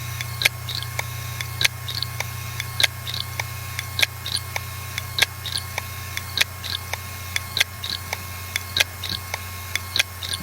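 A damaged hard disk drive running at speed, with a steady whine from its spinning platters and regular sharp clicking about twice a second, the louder clicks about a second apart. The repeated clicking is the typical sound of a failing drive.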